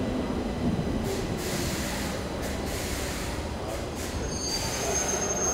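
Stockholm metro train moving along the station platform: a steady rumble of wheels and motors, with a high, thin wheel squeal coming in about four and a half seconds in.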